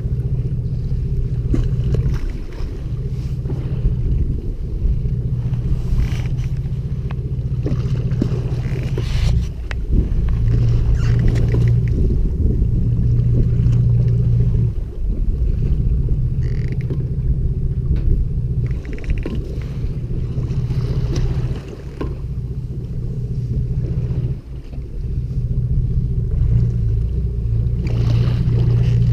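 Fishing boat's engine running with a steady low hum, under wind rumbling on the microphone.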